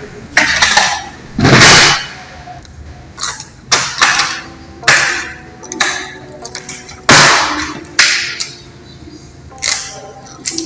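Plastic housing of a Fujitsu fi-8150 document scanner being handled on a wooden desk: a string of sharp clacks, knocks and scrapes, about seven strong ones at uneven spacing, as the scanner is turned around and its top cover is opened.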